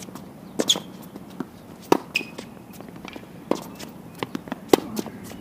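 Tennis rally on a hard court: a handful of sharp knocks from rackets striking the ball and the ball bouncing, the loudest near the end, with brief tennis-shoe squeaks and footsteps in between.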